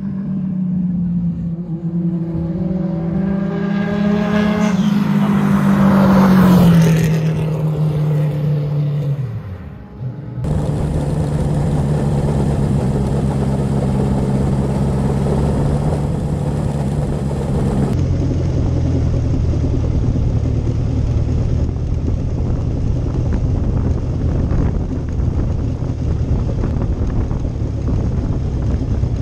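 Open-wheel single-seater race car engine going past: its note rises as it approaches, is loudest about six seconds in, then drops and fades away. After a sudden cut about ten seconds in, a single-seater's engine idles steadily, heard from the cockpit with the car stopped in the pit lane.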